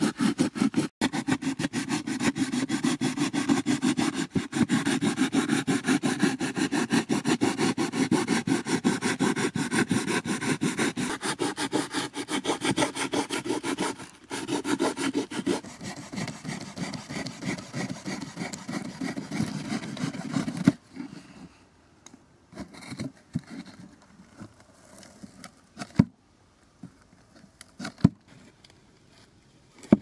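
Knife sawing through a corrugated cardboard box in quick back-and-forth strokes, a rapid rasping scrape. It stops abruptly about two-thirds of the way through, followed by a few sharp taps.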